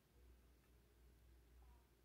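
Near silence: only a faint low rumble of room tone.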